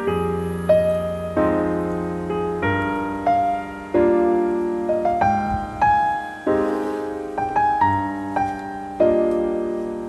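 Background piano music, a slow melody of single notes and chords, each note dying away after it is struck.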